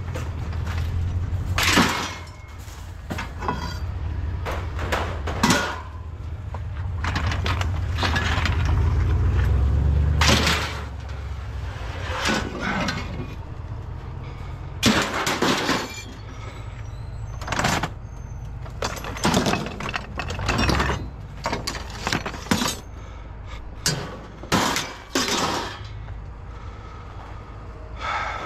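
Scrap metal and junk being tossed off a trailer onto a scrap heap: a long run of clanks, crashes and rattles, irregularly spaced. A low rumble sits under the impacts for the first ten seconds or so.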